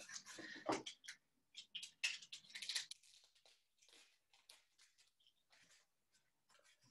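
Corrugated cardboard and clear tape handled by hand: rustling, crinkling and small clicks. The handling is busiest in the first three seconds, then thins to a few faint ticks.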